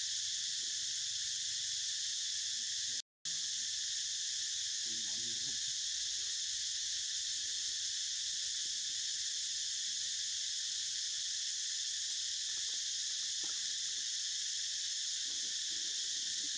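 Dense, steady chorus of insects: an even high buzz that cuts out briefly about three seconds in.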